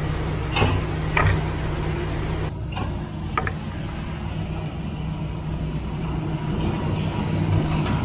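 Concrete mixer truck's diesel engine running with a steady low hum. A few short knocks come in the first second and a half.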